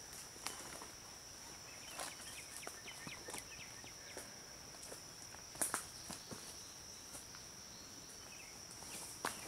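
Faint woodland ambience: a steady high insect buzz, with scattered light footsteps and clicks on the forest floor as a disc golfer steps through his throw. The sharpest click comes a little past halfway.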